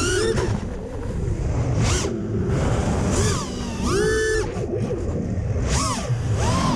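FPV racing quad's four brushless motors (2207, 2450 kv, on 5-inch props) whining, the pitch swooping up and down sharply several times with the throttle, over a low rush of air noise.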